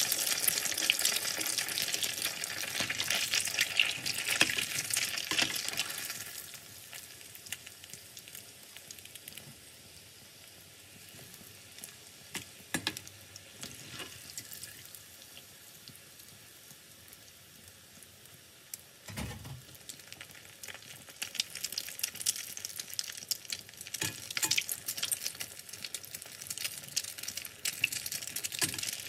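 Breaded pollock croquettes deep-frying in hot oil: a dense crackling sizzle, loud at first, quieter through the middle and loud again in the last third. A few light clicks of a metal skimmer in the pan come through the quieter stretch.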